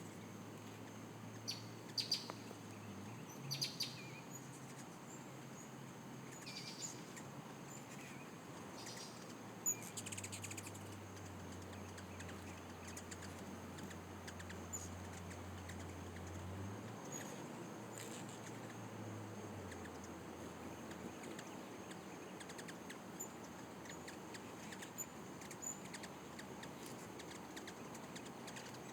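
Hummingbirds chirping at feeders: short high chirps in quick clusters during the first half, then only scattered faint ticks. A low hum comes and goes underneath, typical of hummingbird wings hovering close by.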